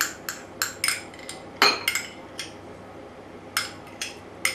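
Spoon clinking and knocking against a bowl as creme fraiche is spooned in: about a dozen sharp, ringing clinks, with a pause of about a second midway.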